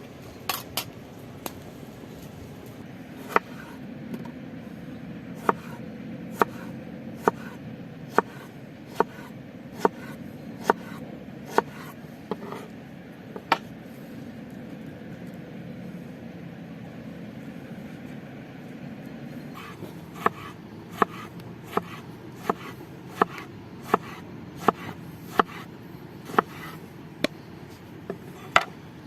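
Slow, even chops on wood, a little over one a second, in two runs with a pause of several seconds between them.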